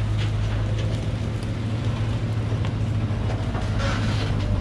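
Truck engine idling steadily, with a few faint knocks of acacia logs being stacked on the truck bed.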